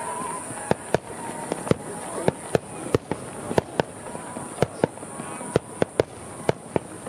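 Aerial fireworks shells bursting in quick succession: a string of sharp bangs, about two or three a second at uneven spacing, as many shells go off together.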